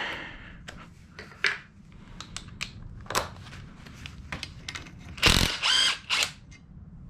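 Hand tools and loose engine parts clicking and clinking in irregular, scattered strikes, with a louder ringing metallic clatter about five seconds in.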